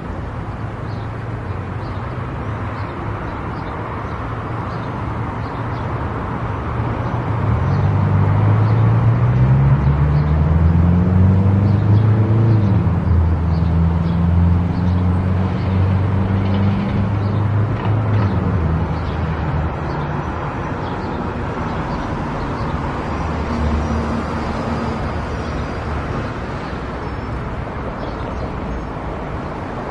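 A car driving along a road, with steady tyre and road noise. About a quarter of the way in the engine note rises and grows louder as the car accelerates, holds for several seconds, then settles back to a steady cruise.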